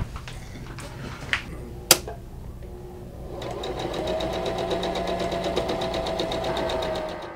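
A few knocks and clicks, then, about three and a half seconds in, a Janome sewing machine starts stitching. It runs steadily with a fast, even stitch rhythm and stops near the end.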